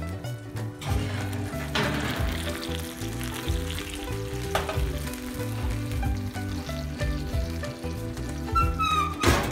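Baked chicken thighs sizzling in their hot fat and juices in a ceramic baking dish fresh from the oven, with a few clunks as the dish is handled, the loudest near the end. Background music with a bass line plays underneath.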